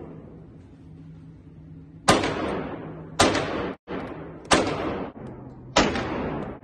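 Four handgun shots inside an indoor firing range, about a second and a quarter apart, each followed by a short echo off the range walls.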